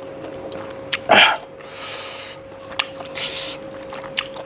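Close-up eating sounds of someone chewing pork: sharp mouth clicks and smacks, with a short loud throaty burst about a second in and breathy noises between bites. A faint steady hum runs underneath.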